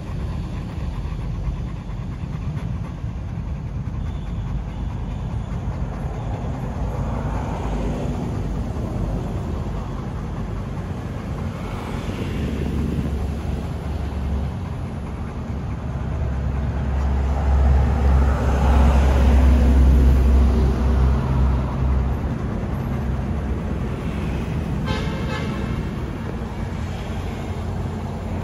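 Low rumble of road traffic, swelling as a vehicle passes about two-thirds of the way through, with a short pitched tone like a horn near the end.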